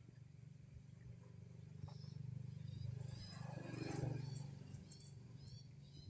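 Low engine hum of a passing motor vehicle, swelling to a peak about four seconds in and then fading, with a few faint high chirps of birds in the second half.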